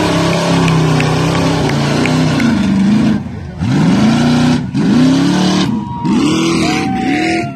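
Lifted 4x4 truck's engine pulling hard through a mud pit. After a couple of seconds of steady high revs it revs up and falls back about five times, roughly once a second, as the throttle is worked through the mud.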